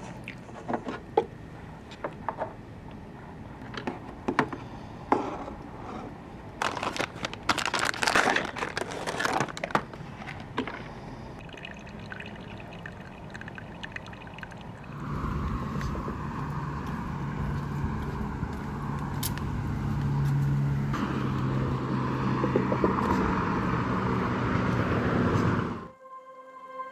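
Handling sounds: scattered clicks and knocks, and a stretch of crinkling, then a steady rushing noise with a low hum that cuts off suddenly near the end.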